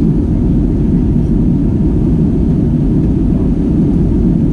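Steady, deep cabin noise inside an Airbus A320-200 in flight on approach: engine and airflow noise heard from a window seat, even and unbroken.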